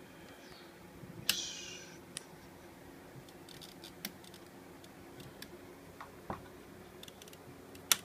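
Scattered small clicks and taps from a ribbon spool and the ribbon mechanism of a Remington Monarch portable typewriter being handled by hand, with a brief rustle a little over a second in and a sharp click near the end as the spool goes onto its spindle.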